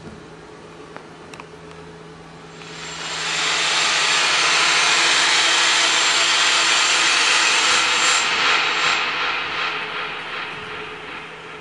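Amplified electronic noise over a low steady hum. A loud hiss swells up about two and a half seconds in, holds, then fades away near the end.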